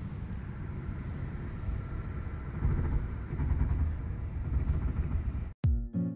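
Steady low rumble of road and engine noise inside a car cruising at highway speed. It cuts off suddenly about five and a half seconds in, and background music with plucked notes begins.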